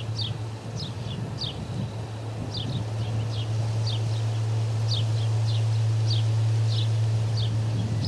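Ospreys calling: a steady run of short, high, down-slurred whistled notes, about two to three a second, some in quick pairs. Under them are a steady low hum and the low rumble of wind on the microphone.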